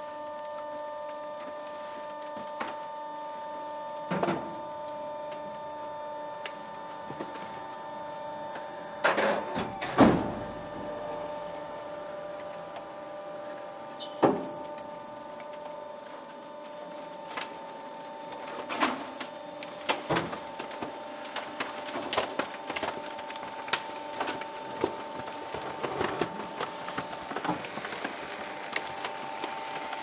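Trash compactor pressing plastic waste: the motor runs with a steady hum while the plastic cracks and crackles under the press. The loudest cracks come about ten seconds in, and the crackling grows denser in the last third.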